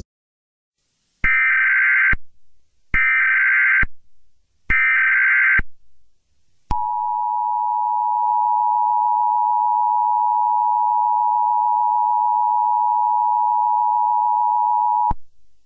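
Emergency Alert System tones: three short buzzy SAME header data bursts, then the two-tone EAS attention signal held steady for about eight seconds before it cuts off.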